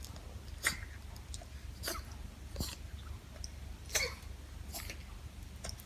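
A dog sneezing several times in a row: short, sharp bursts of air about a second apart.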